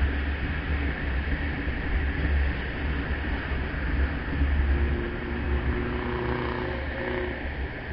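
Motorcycle on the move in highway traffic: heavy wind rumble on the microphone over engine and road noise. A faint steady hum joins for a couple of seconds from about the fifth second.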